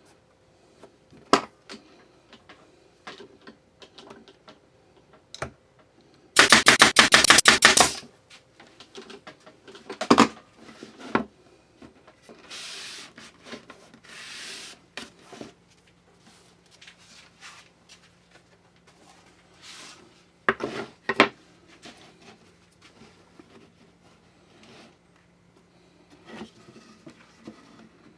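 Workshop handling noises: scattered knocks and clicks of plywood strips being handled and fitted, with one loud rapid rattle of many quick strikes lasting about a second and a half, and two short hisses around the middle.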